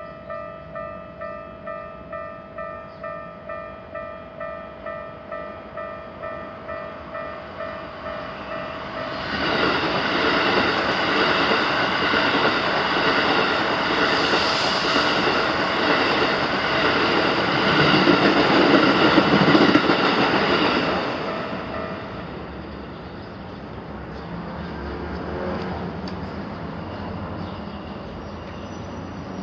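Japanese level-crossing alarm bell ringing steadily at about two strikes a second while a Keikyu Main Line train passes over the crossing, its wheels on the rails a loud rush from about nine seconds in for some twelve seconds. The bell stops just after the train clears, leaving a fainter low rumble.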